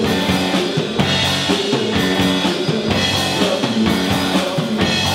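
Live rock band playing with drum kit, electric bass and electric guitar, with a steady drum beat.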